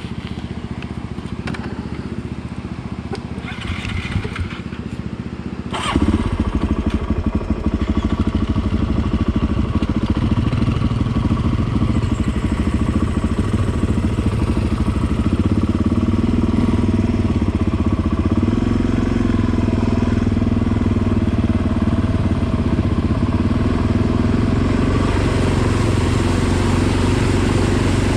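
Motorcycle engine running, quieter at first. At about six seconds it suddenly gets much louder, then runs steadily under way, its pitch shifting a little now and then.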